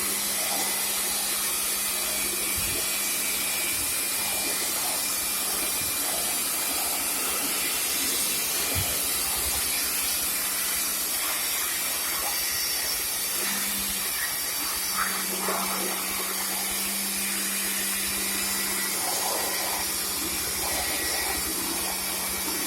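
Steady hiss of spraying water over a constant motor hum, typical of a pressure jet pump washing the coils during a split air conditioner service, with a few faint knocks.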